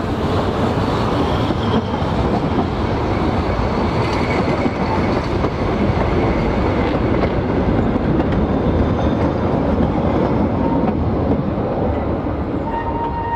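Narrow-gauge passenger coaches on 2 ft gauge track rolling past steadily, their wheels clattering over the rail joints as the tail of the train goes by. A faint thin squeal comes in near the end.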